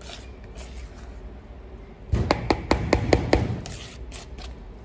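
Metal spoon folding thick cake batter in a plastic mixing bowl, with soft scraping, then a quick run of about eight clicks of the spoon knocking against the bowl a little past two seconds in.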